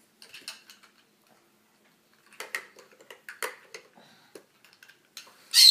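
Large plastic building blocks clicking and knocking together as they are handled and pressed onto a build, in short irregular taps, with a louder sharp clatter near the end.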